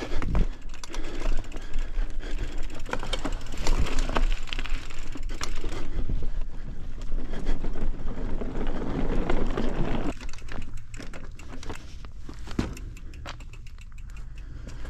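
Mountain bike rattling and clattering over rough trail, with a run of quick clicks and knocks over wind rumble on the microphone; it eases off about ten seconds in.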